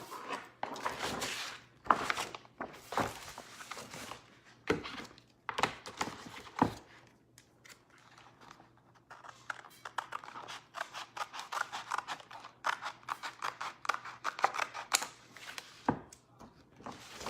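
Handling noises of craft materials on a tabletop: plastic sheets rustling and small tools knocking as they are picked up and set down, with a quick run of small clicks and scrapes in the second half.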